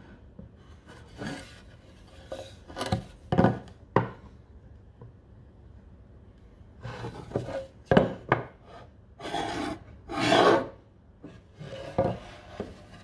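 Irregular scrapes and rubs with a few sharp knocks: a steel combination square being slid and repositioned against a wooden toolbox panel, and the panel handled and laid down on a wooden workbench.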